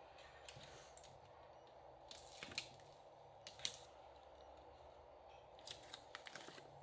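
Near silence with a few brief, soft rustles and clicks of card stock being slid and handled on a cutting mat.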